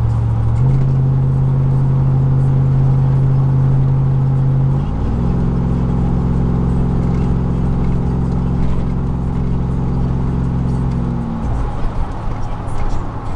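Car driving at a steady speed, heard from inside the cabin over road noise: a steady low drone that steps to a new pitch about half a second in and again about five seconds in, then drops away near the end.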